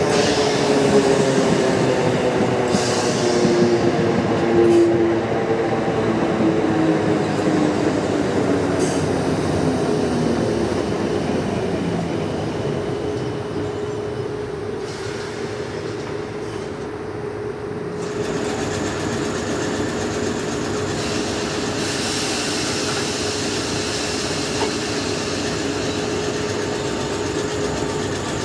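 Class 455 electric multiple unit slowing into a station, its motor whine falling steadily in pitch, then standing with a steady electrical hum. About 18 s in, the sound switches to another electric train standing at the platform, humming steadily.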